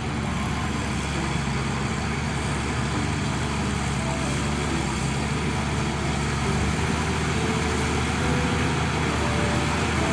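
A vehicle engine running steadily: a low hum under an even, dense noise, with no change in speed.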